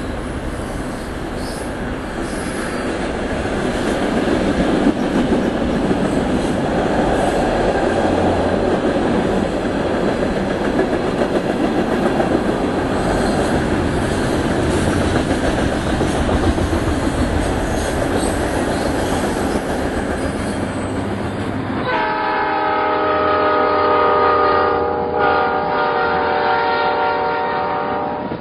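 HO-scale model freight train rolling on its track, a steady rumble with wheel clicks. About two-thirds of the way through the sound cuts to a train horn blowing a steady chord of several tones, held until the end.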